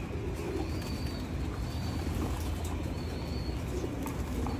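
A flock of racing pigeons cooing and flapping their wings over a steady low hum, with three short, thin, high whistles about a second apart.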